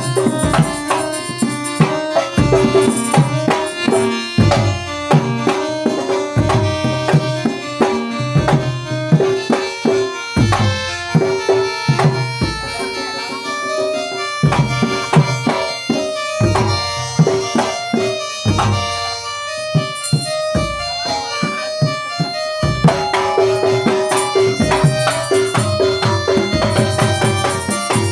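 Traditional folk music with hand drums playing a brisk, steady rhythm under a held melody line.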